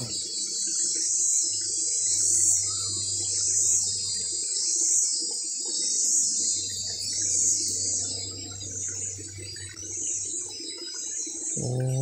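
Cicadas singing in a high, pulsing chorus that swells and fades about once a second.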